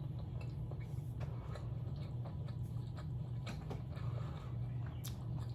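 Soft, scattered clicks and mouth or food-handling noises close to the microphone, over a steady low hum.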